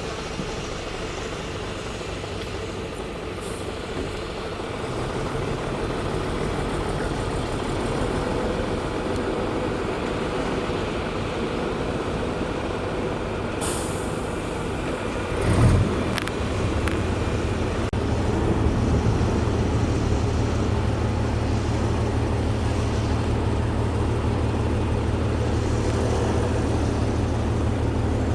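Diesel engine of heavy road-building machinery running steadily under load. A brief hiss comes about halfway through, then a single loud clunk. After that the low engine drone is louder and more even.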